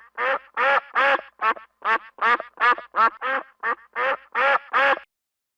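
Duck quacking in a rapid series of short, nasal calls, about three a second, stopping abruptly about five seconds in.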